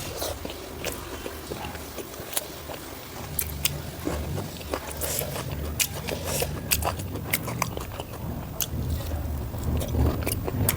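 Close-miked eating: wet mouth clicks and smacks of someone chewing pork fat and rice. There is a low rumble underneath that grows stronger a few seconds in.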